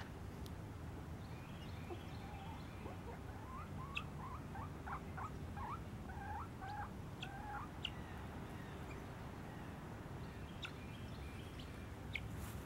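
Guinea fowl giving a run of about ten short, soft chirping notes, roughly two or three a second, for a few seconds in the middle, over a low steady rumble.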